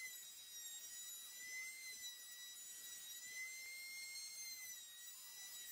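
Router mounted upside down under a plywood base as a makeshift router table, running with a small round-over bit as a pine board's edges are rounded: a faint, steady high whine that wavers slightly up and down in pitch.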